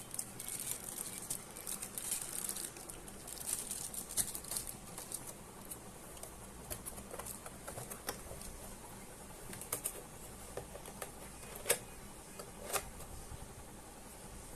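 Keys of an RK61 60% mechanical keyboard being pressed, clicking in quick runs at first and then in scattered single presses, with two louder clacks about two thirds of the way through.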